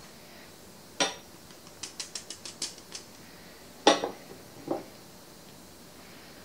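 Kitchen mesh sieve knocked and tapped against a glass mixing bowl to shake dry ingredients through. A sharp knock comes about a second in, then a quick run of about seven light taps, then a loud knock and a smaller one near the middle.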